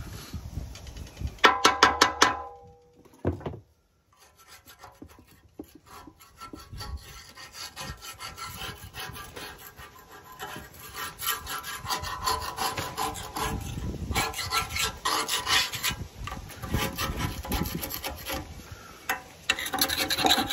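Steel paint scraper scraping flaking powder coat and rust off a steel plow frame in quick, repeated strokes, taking bubbled and damaged powder back to good powder or bare metal before blasting. A brief metallic clatter with ringing comes about two seconds in, followed by a moment of near quiet before the scraping builds.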